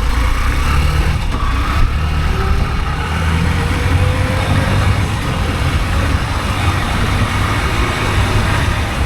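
Single-cylinder engine of an SP125 motorcycle running steadily while being ridden, with a low, even drone and road noise.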